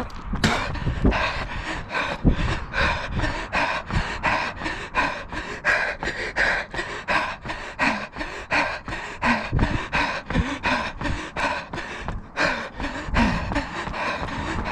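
A runner's hard panting breaths and footfalls on a paved path, in an even rhythm of about three strokes a second, at tempo-run effort.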